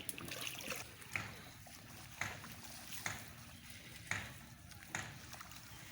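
Small boat being rowed on a river: a short splashing stroke in the water about once a second, steady and regular.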